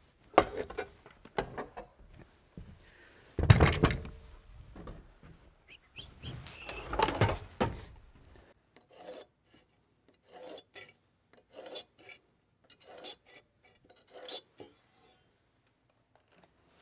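Cordless circular saws being set down and shifted on a wooden plank, with clunks and scrapes. After that comes a string of short scratching strokes about once a second: marking a board against a speed square.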